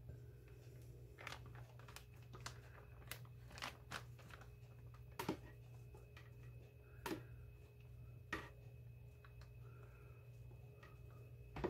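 Faint, scattered clicks and taps of a fork against a glass baking dish as perch fillets are turned in beaten egg, over a steady low hum.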